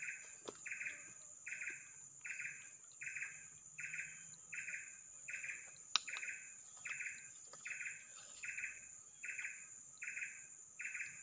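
Forest wildlife chorus: a short buzzy call repeating steadily about twice a second over a continuous high insect drone, with one sharp click about six seconds in.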